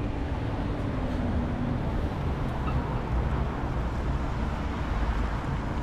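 Steady city street traffic noise: a continuous low rumble of passing vehicles, with a faint steady hum in the first two seconds.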